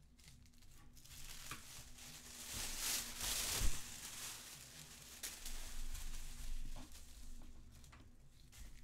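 Large sheet of paper sewing-pattern paper rustling and crinkling as it is lifted and turned over on a table, loudest about three to four seconds in, with lighter rustles after.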